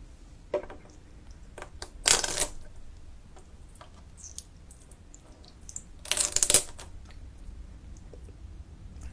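Wet handling of a live octopus on a wooden board: small sticky clicks, with two louder crackly, squelching bursts about two and six seconds in as it is pulled at and lifted.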